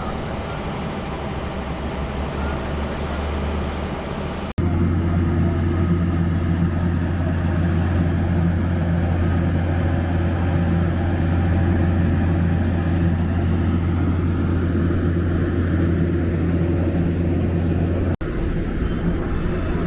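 Busy road traffic with vehicle engines running and a steady low rumble, loudest through the middle stretch. The sound changes abruptly twice, where separate shots are spliced together.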